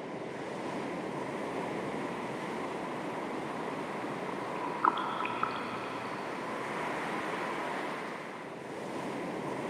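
Calm sea waves lapping with a steady wash, with a light breeze. About five seconds in there is a brief, sharp, high squeak-like sound, heard twice in quick succession.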